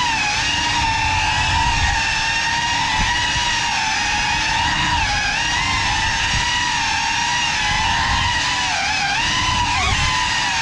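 Cinelog 35 cinewhoop FPV drone's motors and propellers whining steadily in flight, the pitch wavering slightly with the throttle and dipping a few times near the end, over a low rumble of prop wash.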